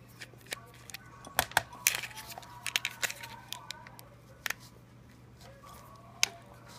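Small screwdriver working the screws of a metal laptop hard-drive caddy: a scatter of sharp metallic clicks and taps, the loudest cluster about a second and a half in, and one more sharp click near the end.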